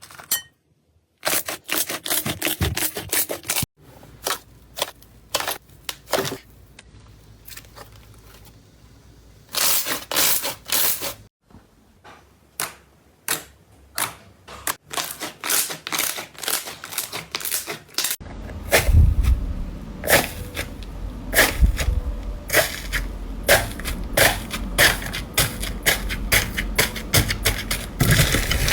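Slime being squeezed and pressed by hand, giving a run of sharp, irregular crackling clicks and pops. Past the middle the pops turn denser and louder, with a deeper squishy undertone.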